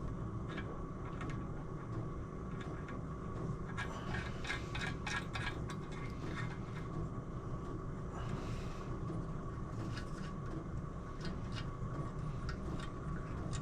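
Bolts with washers being fitted and spun in by hand through the holes of powder-coated motorcycle engine crankcases: light metal clinks and scraping in scattered clusters, over a steady low hum.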